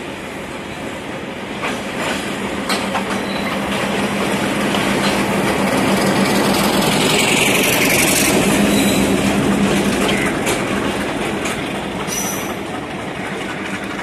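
Class M4 diesel-electric locomotive passing close by, its diesel engine running with a steady low hum that grows loudest about eight seconds in and then fades. A few sharp clicks come from the wheels over the rail joints.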